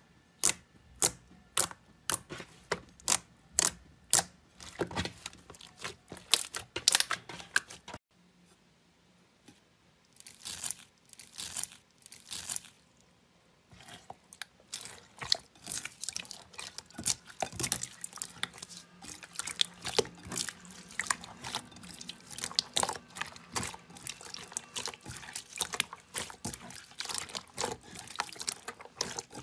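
Thick slime pressed by fingers, giving sharp popping clicks about two a second that crowd closer together as it is worked. After a brief pause, wet squelching and crackling as hands push into clear, glossy slime in a glass bowl.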